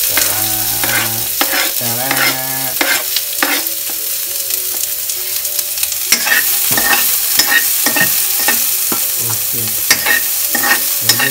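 Chopped onion frying in ghee in a wok over low heat: a steady sizzle under the clatter of a metal spoon stirring and scraping against the pan. The scraping grows busier about halfway through.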